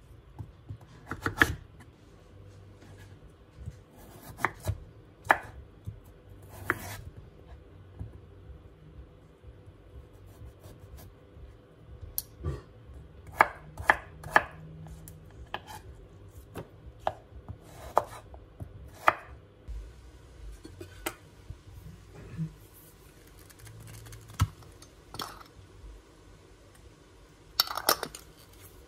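Kitchen knife chopping butternut squash and then potato on a wooden cutting board: sharp, irregular knocks of the blade on the board, a second or more apart. Near the end comes a quick cluster of clicks as the metal lid of a glass jar is twisted open.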